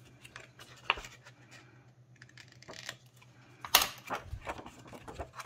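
Stiff white cardstock being handled and folded by gloved hands: a sharp click about a second in, then a cluster of crisp paper rustles and taps near four seconds in. A low steady hum runs underneath.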